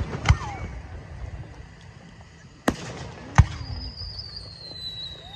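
Fireworks display: aerial shells bursting with sharp bangs, one about a third of a second in and two close together around three seconds in, followed by a long high whistle that slowly falls in pitch.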